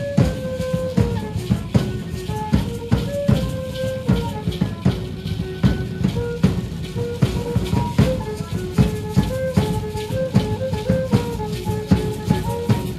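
Feather-dance music: a drum beats a steady rhythm while the dancers shake hand rattles in time, over a simple repeating melody of short held notes.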